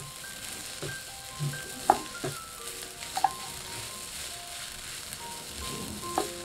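Fried rice sizzling in a pan as a wooden spatula stirs and tosses it, with a few sharp knocks of the spatula against the pan, the loudest about two seconds in and near the end. A light melody of short held notes plays in the background.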